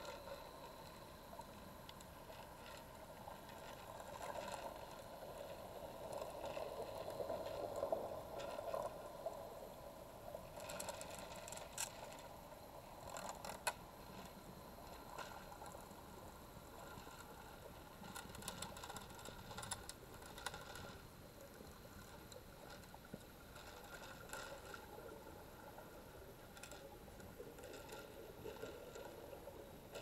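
Hammerhead Resort 30-inch battery-powered pool vacuum at work in the water: a steady swishing of water with a faint motor whine, broken by scattered light clicks and knocks.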